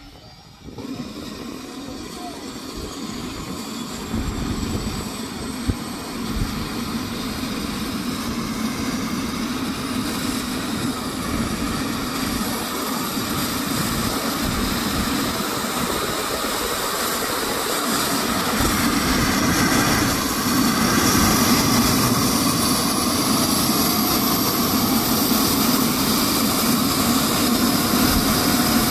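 Air-rescue helicopter's turbine engines starting up on the ground: a whine that rises slowly in pitch and grows steadily louder as the engines spool up and the rotor runs up.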